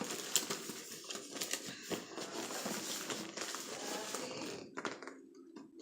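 Close handling noise: rustling and crinkling with many small clicks and taps as something is arranged by hand, going quieter near the end.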